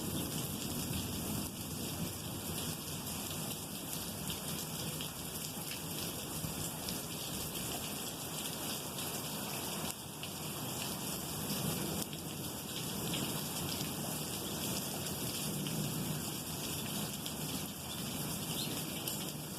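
Steady heavy rain falling and pattering on surfaces, with low thunder rolling faintly underneath, swelling now and then.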